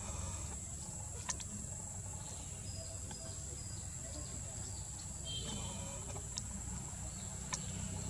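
Outdoor ambience: a steady high insect drone over a low rumble, with a few sharp clicks and short high bird chirps around the middle.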